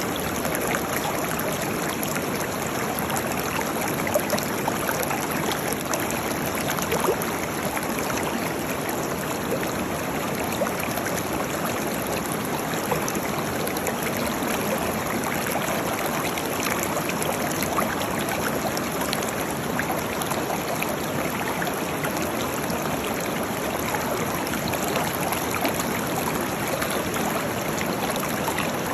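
Waterfall: a steady rush of falling water with frequent small splashes.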